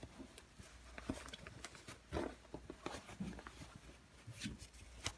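Faint rustling and scattered light clicks of a stiff fabric container being handled and turned right side out.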